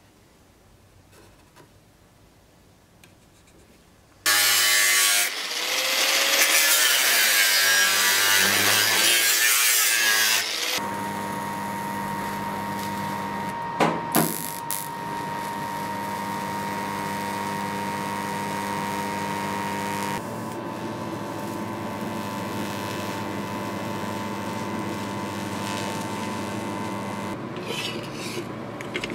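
Light scratching of a scribe on sheet steel. About four seconds in, a power tool starts grinding steel with a loud, harsh noise. After about ten seconds it settles into a steadier running whine with a hum, broken by two sharp cracks near the middle.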